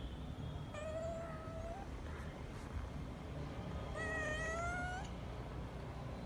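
Kitten meowing twice, each call about a second long and rising a little at the end, the second, louder one about four seconds in.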